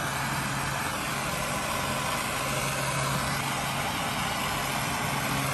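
Handheld gas torch burning with a steady hiss while shrinking heat-shrink tubing onto a crimped battery cable lug, over a low steady hum.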